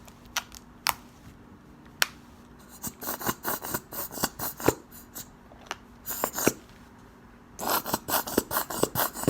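Glue slime being worked by hand, giving sticky clicks and crackling pops: a few lone clicks at first, then two runs of quick clicks, about three seconds in and again near the end.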